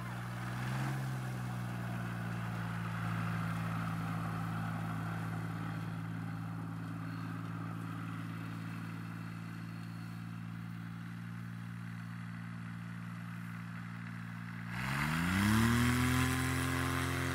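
Microlight trike's pusher engine and propeller running at a steady low throttle as the trike moves off across the field. About fifteen seconds in, the engine revs up sharply and holds at a higher, louder pitch.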